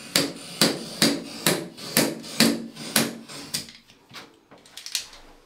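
Stanley knife scoring a cut line across the wood-veneer slats of an acoustic slat wall panel, drawn along a spirit level, with room echo. A regular sharp tick comes about twice a second as the blade crosses the slats, thinning out to a few fainter ticks after about three and a half seconds.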